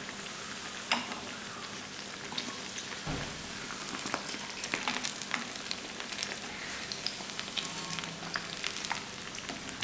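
Aval vada fritters deep-frying in hot oil in a non-stick kadai: a steady sizzle with many scattered crackles, as a spoon turns them in the pan. A couple of light knocks, about one and three seconds in.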